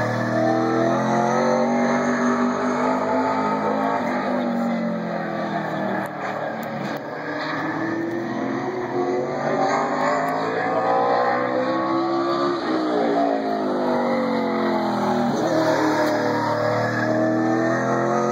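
Late model stock car's V8 engine lapping a short oval. Its pitch climbs as it accelerates down the straights and drops as it lifts for the turns, several times over.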